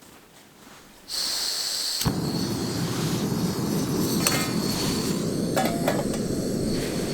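Camping gas stove being lit: gas hisses from the burner for about a second, catches with a sharp click about two seconds in, then burns with a steady rushing roar, with a couple of light metal clinks over it.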